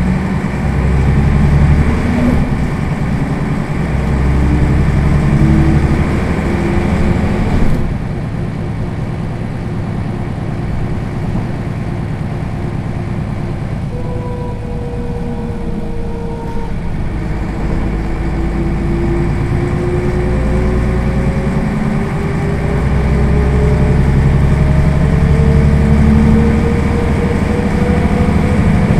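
Mercedes-Benz O 405 city bus heard from inside the passenger cabin, standing still with its diesel engine idling. There is a sharp click about eight seconds in, after which the engine sound drops a little, and faint, slowly rising whines run through the second half.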